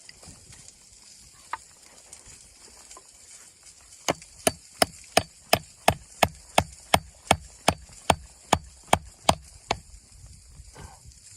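A run of about sixteen sharp, evenly spaced knocks, roughly three a second, starting about four seconds in and stopping near the end.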